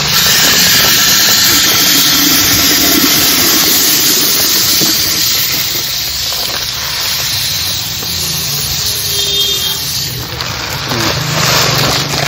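Dry short-grain rice (nei arisi) pouring from a sack into a steel pot of water, a steady rush of grains that eases off about ten seconds in, over a low steady hum.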